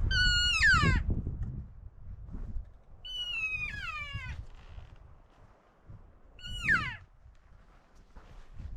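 Three cow elk mews, each a high, nasal call about a second long that slides down in pitch, spaced about three seconds apart, over low wind rumble on the microphone.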